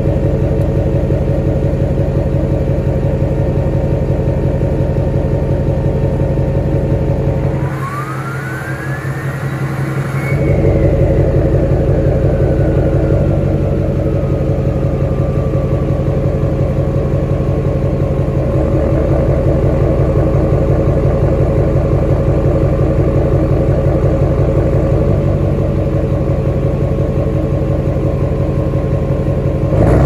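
2005 LLY Duramax V8 turbodiesel idling with a steady turbo whistle from its modified turbocharger, which has a billet compressor wheel and a 10-blade exhaust wheel, running through a straight-piped 4-inch exhaust. About eight seconds in it is revved and the whistle climbs sharply in pitch, then winds slowly back down over several seconds to the idle whistle. Right at the end another rev starts the whistle rising again.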